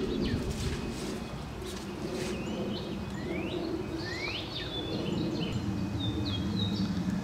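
A songbird chirping several times, short calls that sweep quickly in pitch, over a steady low background rumble.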